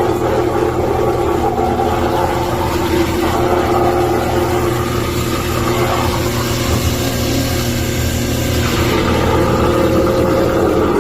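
A 1.5-horsepower soy-milk grinding machine running, its electric motor giving a steady hum. A hiss from the machine grows brighter for a few seconds in the middle, then drops off sharply about nine seconds in.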